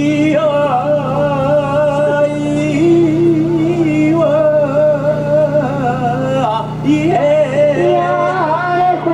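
A man singing an ondo-age festival chant solo, drawing out long held notes with wavering, ornamented pitch, over a steady low hum.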